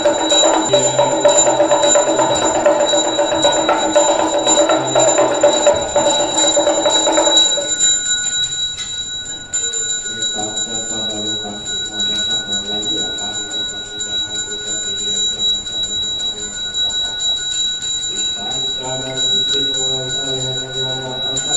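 A ritual hand bell rung continuously in a fast shimmering jingle. Over it, a conch shell trumpet is blown in one long held note that stops about seven seconds in. A voice then chants a mantra against the bell.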